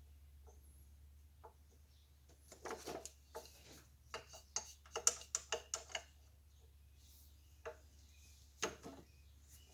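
A run of light clicks and taps, about a dozen between roughly two and a half and six seconds in and two more near the end, from hand tools and small metal fittings being handled, over a steady low hum.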